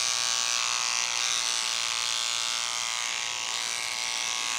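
Electric beard trimmer buzzing steadily as it runs over the moustache.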